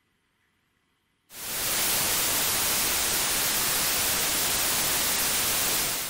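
Synthetic white noise generated from the decimal digits of pi played as a sound: a steady, even hiss covering all frequencies that starts abruptly a little over a second in.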